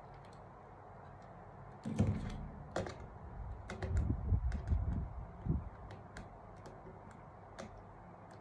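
Small screwdriver clicking and scraping on the terminal screws inside the open plastic housing of a KG-H06 pendant control station, in scattered light ticks. About two seconds in there are a few seconds of louder knocks and rubbing as the pendant is handled.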